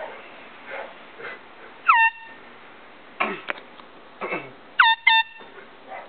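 Air horn blasted three times in short bursts: one about two seconds in, then two in quick succession near the end. Each blast starts with a quick upward swoop in pitch before holding steady.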